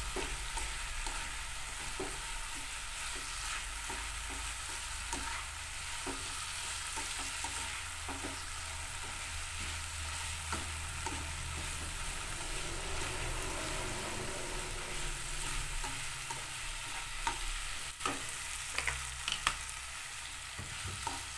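Tempeh frying in sweet soy sauce in a small nonstick wok: a steady sizzle, with a slotted spatula stirring and scraping through it in repeated short strokes. A few sharper knocks of the spatula come near the end.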